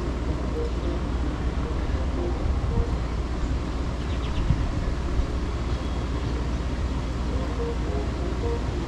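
Steady low rumble of wind buffeting the microphone over city ambience, with faint short low tones coming and going and a brief faint high chirp about four seconds in.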